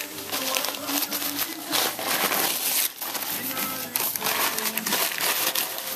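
Dogs chewing and working at a coffee-can treat, a steady crinkling, crunching clatter, with music playing in the background.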